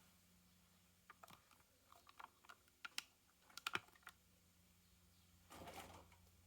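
Faint, scattered clicks and taps of small die-cast toy cars and their packaging being handled, with a brief rustle about five and a half seconds in.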